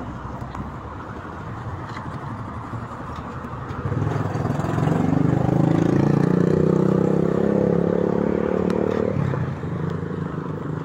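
Road traffic on a wet street: a steady hiss of tyres and rain, and about four seconds in a nearby vehicle's engine gets loud with a steady low hum for about five seconds, then drops away fairly suddenly.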